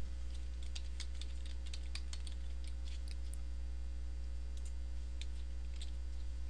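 Computer keyboard typing: quick runs of key clicks, thick for the first few seconds, then more scattered. A steady low electrical hum lies underneath.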